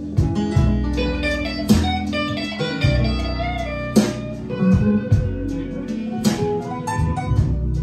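Blues recording played back through Chario Hiper 2000 loudspeakers driven by an Arcam SA30 amplifier: plucked guitar over a low bass line, with a sharp percussive hit about every two seconds.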